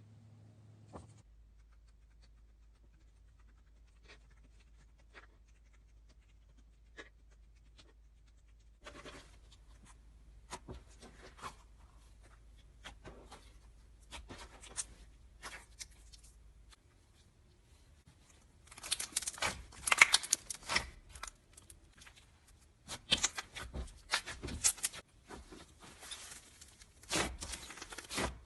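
Slime being handled close to the microphone: sticky crackles and small pops, sparse and faint at first, then growing dense and loud about two-thirds of the way in.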